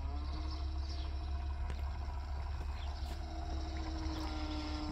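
Electric motor of a railroad switch machine running as it slowly drives the turnout points over, a steady hum that starts just after the beginning and drifts slightly in pitch, with a few faint ticks.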